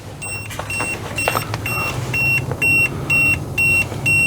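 Digital multimeter's continuity beeper giving short, evenly spaced high beeps, about two a second, as its probes touch ground and neutral. The beeping signals continuity between ground and neutral where there should be none: a sign of a ground fault in the wiring feeding a GFCI outlet that won't reset.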